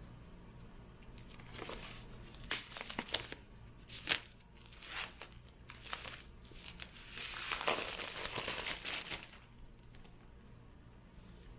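Packaging of a new Apple Magic Keyboard box being opened: a pull tab tearing and paper wrapping crinkling in irregular bursts, with a sharp snap about four seconds in and the busiest rustling near the end.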